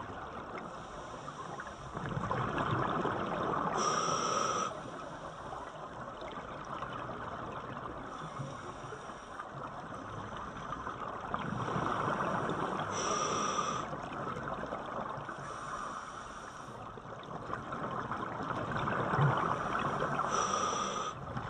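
Scuba diver breathing through a regulator underwater: three slow breaths, each a rush of bubbles ending in a short hiss, with steady bubbling and water noise between them.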